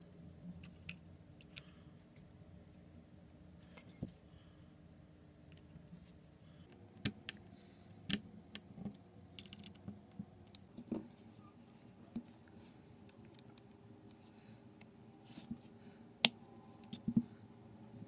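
Small sharp metallic clicks and taps of a precision screwdriver on the tiny screws and metal shield plates inside an opened iPhone 6, coming irregularly over a faint steady hum, the loudest about sixteen seconds in.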